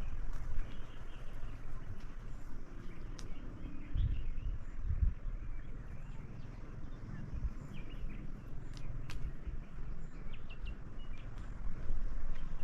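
Outdoor rural ambience: a low rumble with irregular soft thumps, a few faint bird chirps, and scattered sharp clicks.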